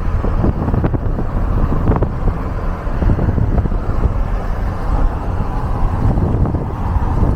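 Wind buffeting the microphone: a loud, steady, fluttering low rumble.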